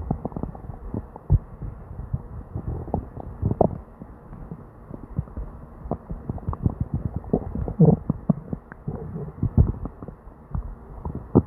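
Upset stomach gurgling and rumbling non-stop, the bowel sounds of diarrhea: a busy, irregular run of short pops and gurgles with a few louder ones scattered through.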